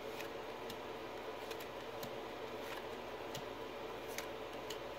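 Faint, irregular soft clicks of baseball trading cards being slid off the front of a stack and flipped to the back by hand, over a steady low room hum.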